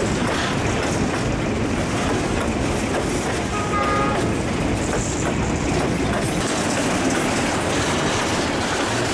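Diesel freight locomotives and their wagons rolling past, a steady loud rumble with wheels running on the rails, and a brief high tone about four seconds in. Container wagons follow, wheels rolling on the track.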